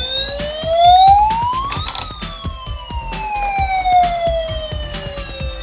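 Battery-operated toy fire truck's electronic siren through its small speaker: a wail that rises for about two seconds, then falls slowly back down, with rapid clicking underneath.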